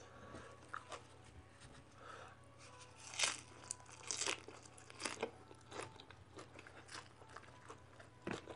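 Close chewing of a mouthful of Isan sausage with raw ginger, shallot and chili: faint, irregular crunches and wet mouth clicks, loudest about three to five seconds in.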